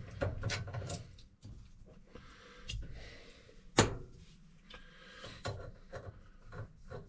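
Screwdriver backing a small Phillips screw out of a brass laundry-sink faucet handle, and the handle being worked off: scattered light metal clicks and scraping, with one sharper knock a little before the four-second mark.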